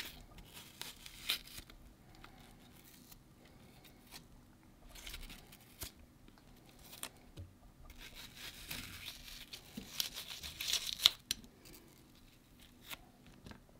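A soft apple's flesh being scraped and cut out while it is hollowed: scattered scraping strokes with a few sharp clicks, busiest and loudest about eight to eleven seconds in.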